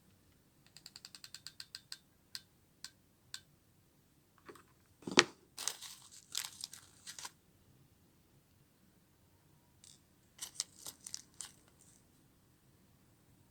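Hands handling small craft pieces while pearl beads are added: a quick run of about ten light ticks, then scattered clicks, a sharper knock about five seconds in, and brief crinkling rustle.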